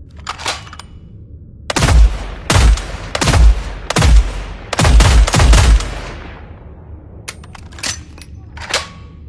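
Fieldmaster HR-10 rifle sound effect: a rapid run of about seven gunshots with a fading echo after them. A few light clicks come before and after the shots.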